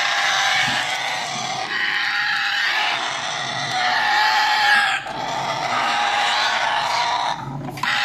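African grey parrot chicks in the nest box giving a harsh, continuous chorus of calls, with brief breaks about five seconds in and near the end.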